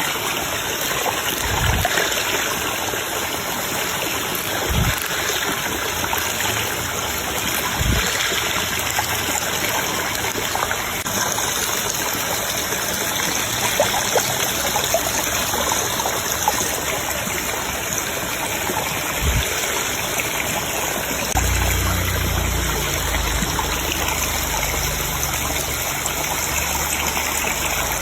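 Steady rush of flowing stream water, with a few short low thumps and a low rumble coming in about three-quarters of the way through.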